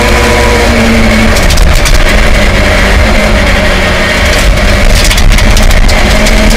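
A 1979 Ford Escort Mk2 rally car's Connaught Warrior 2.4 engine running hard under load, heard from inside the cabin, its pitch shifting as the revs change. Gravel and stones rattle against the underbody in clusters, about a second and a half in and again around five seconds in.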